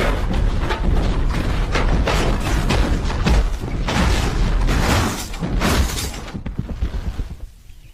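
Loud, irregular mechanical clattering and knocks over a steady low noise, dying away near the end.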